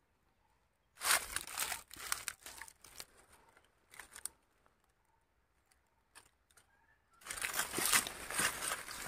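Crinkling and rustling in short bursts as a backpack and plastic sacks are handled on a bed of dry fallen leaves. From about seven seconds in this gives way to steady crunching footsteps through dry leaves.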